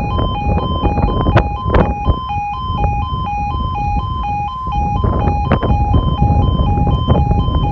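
Railway level crossing warning alarm sounding a steady two-tone yodel that alternates between two pitches a few times a second. It signals that a train is approaching and the crossing is closing.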